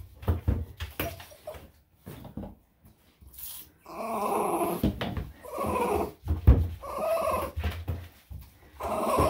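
Elderly Bichon/Shih-Tzu cross whining, about four drawn-out cries of roughly a second each starting about four seconds in, while being lathered in the tub. Before the cries, soft knocks and rubbing from hands working its wet coat.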